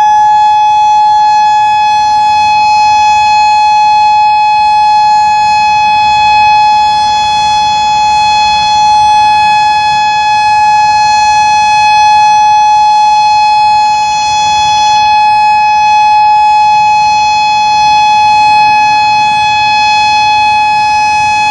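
Federal Signal Modulator 5020 electronic outdoor warning siren sounding its weekly test: a loud, steady single high tone with no rise or fall in pitch, its loudness swelling and dipping slightly.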